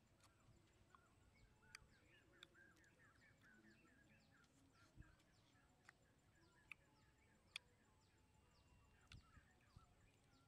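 Near silence: quiet outdoor ambience with faint, rapid chirping and a handful of short, sharp clicks as small wild fruits are peeled and eaten.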